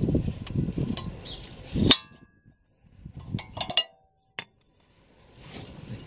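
Toyota Avensis T27 rear brake pads being worked out of the caliper bracket: a sharp metal clank with a brief ring about two seconds in, then a quick cluster of clinks and one last click as the steel-backed pads and their clips knock against the bracket.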